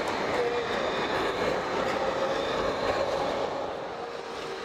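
Electric low-floor tram passing close by: a steady rumble of wheels on rails with a wavering tone from the running gear. The sound drops quieter about three and a half seconds in.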